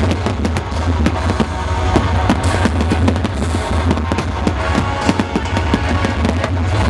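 Fireworks going off in quick succession, dense bangs and crackles with hardly a gap, over loud music with a steady deep bass.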